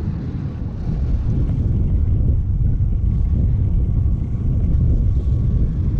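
Wind buffeting the microphone of a neckband-mounted GoPro Hero6 with its manual audio wind reduction switched off, on a bicycle riding into a headwind: a steady, loud low rumble.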